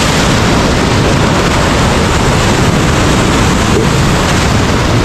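Ocean surf breaking in the shallows: a wave crashes and foaming water rushes around, a loud steady rush with a heavy low rumble.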